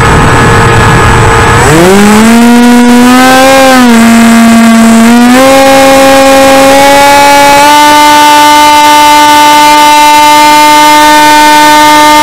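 RC flying wing's motor and propeller, heard close from on board. At first wind rush with a steady whine, then about two seconds in the whine climbs sharply in pitch as the throttle opens. The pitch wavers and dips briefly, then steps up to a higher steady drone after about eight seconds.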